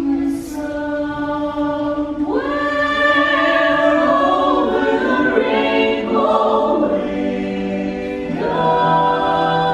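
Choir singing slow, held chords, with new phrases coming in about two seconds in and again near the end.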